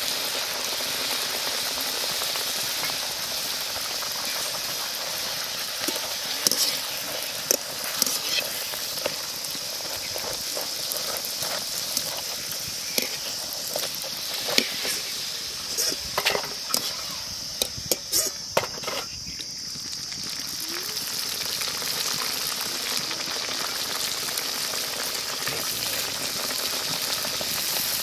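Puris deep-frying in hot oil in a kadai: a steady sizzle as a wire skimmer turns and presses them, with scattered sharp taps and crackles through the middle stretch.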